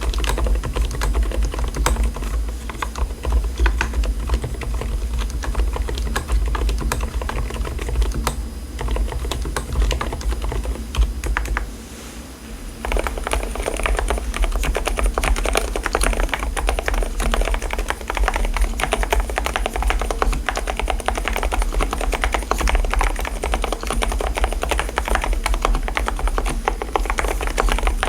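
Fast, continuous typing on an Mstone mechanical keyboard fitted with low-noise (silent) switches. About twelve seconds in the typing stops briefly, then resumes with a brighter clatter.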